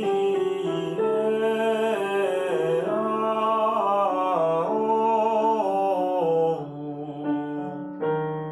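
A man singing a vocalisation exercise on the syllable "ri" and open vowels over piano chords. The held notes move step by step, down and back up. The phrase fades after about six and a half seconds and a new one starts near the end.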